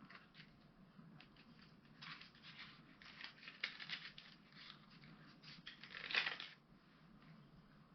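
Small cardboard product box being opened and handled by hand: faint scattered rustling and scraping of paper and card, with one louder scrape or tear about six seconds in.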